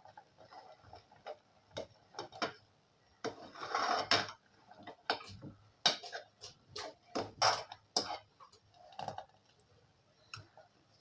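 Spoon clinking and scraping against a cooking pot while stirring in cardamom powder: irregular sharp taps, with a longer scrape about three seconds in and another near the middle.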